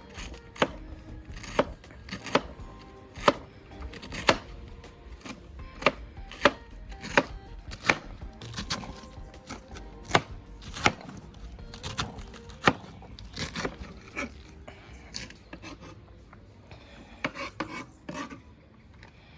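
Knife dicing cabbage, sharp chopping strikes about one or two a second, thinning out near the end.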